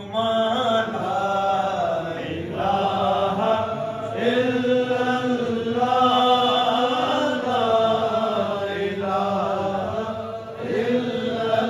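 A man's voice chanting an Urdu devotional poem in a slow sung melody, holding long wavering notes, with short pauses between phrases.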